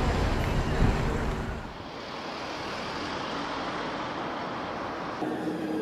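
Street ambience of city road traffic: a heavy low rumble for the first second and a half, then an abrupt change to a lighter, even hiss.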